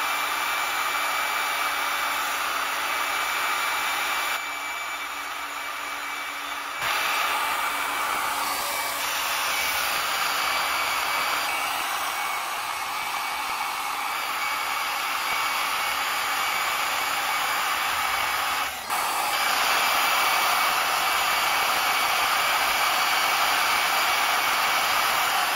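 Camshaft polishing machine running: the cam turns between centres while a motorised belt polisher drives a narrow abrasive belt over the lobes and journals, giving a steady electric whir with a rushing hiss. The level dips for a couple of seconds about four seconds in, then steps up a little about seven seconds in and again near nineteen seconds.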